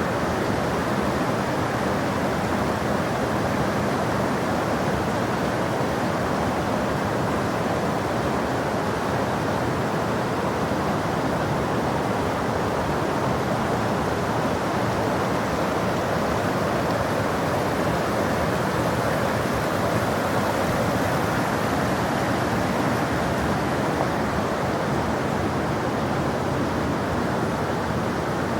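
Water of a spring-fed stream gushing out from beneath a rock, a steady, even rush with no breaks.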